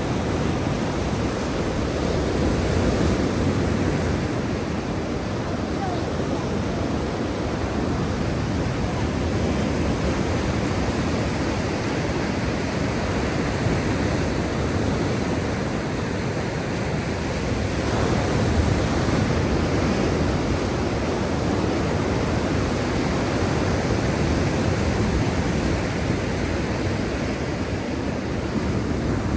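Black Sea surf: waves washing in as a steady rushing noise that swells and eases every few seconds.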